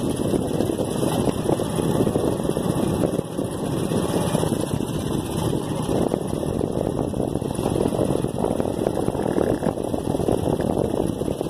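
Motorcycle engine running steadily while riding along a rough dirt road.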